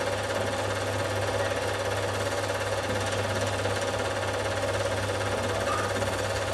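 Cine film projector running: a steady mechanical whirr and rapid clatter with a constant low hum beneath it.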